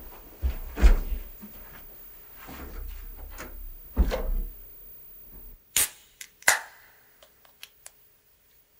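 Irregular knocks and thumps over a low rumble, then two sharp cracks and a few lighter clicks before it goes quiet.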